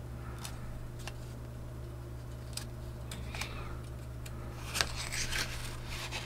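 Paper pages of a booklet being handled and turned: scattered light clicks, with a sharper click and a short rustle about five seconds in, over a steady low hum.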